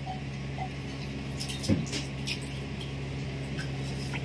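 Felt-tip marker writing on notebook paper: a few short strokes of the tip on the page about one and a half to two and a half seconds in, with a soft knock among them, over a steady low hum.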